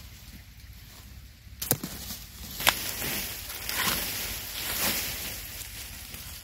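Dry maize husks and leaves rustling and tearing as a fresh ear of corn is husked by hand, with two sharp snaps about a second apart around two seconds in.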